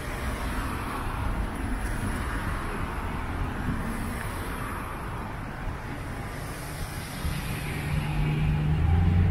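Car driving slowly in busy street traffic: steady road and traffic noise, with a low engine hum swelling near the end.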